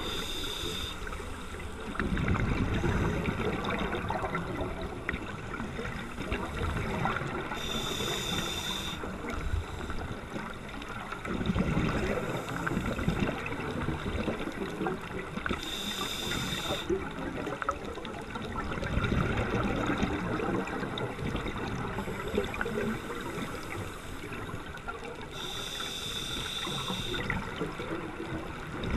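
Scuba diver breathing through a regulator underwater, about four breaths: each a short high hiss of the inhale, followed a second or two later by a few seconds of rumbling exhaled bubbles.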